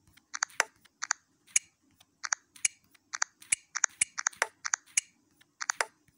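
A string of short, sharp clicks at an uneven pace, about two to three a second, from a smartphone being operated.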